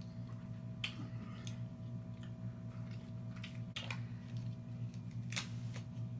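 A person chewing and smacking while eating seafood, with wet mouth sounds and a few sharp clicks, over a steady low hum.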